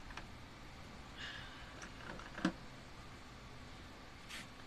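Scattered light clicks and taps of small bolts and washers being handled, with one sharper click about two and a half seconds in and a couple of brief rustles.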